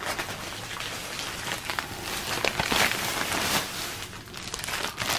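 Clear plastic bag around decorative silver sprays crinkling and crackling as the stems are handled and pushed into a vase.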